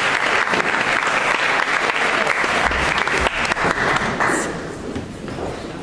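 Audience applauding, the clapping dying down about four seconds in.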